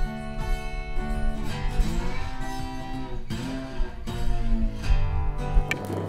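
Background music led by a strummed acoustic guitar, moving through chord changes.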